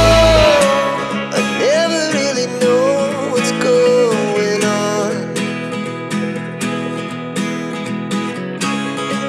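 Background music led by plucked guitar, with a wavering lead melody on top; the heavy bass drops out about half a second in, leaving a lighter guitar-led passage.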